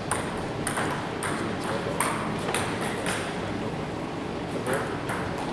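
Table tennis balls clicking off bats and table tops, a scattering of irregular single hits.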